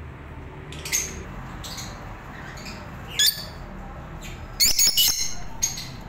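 Peach-faced lovebirds giving short, sharp, high-pitched squawks: one call about a second in, another about three seconds in, then a louder quick run of several calls near five seconds.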